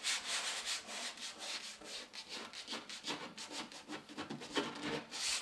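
Hand rubbing and smoothing Rexine vinyl leathercloth down onto a wall panel coated with tinned contact glue, in a quick, uneven run of short brushing strokes.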